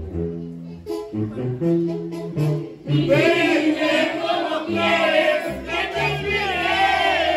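Music: a short instrumental passage over a stepping bass line, then sung voices come in about three seconds in, with a clear wavering vibrato.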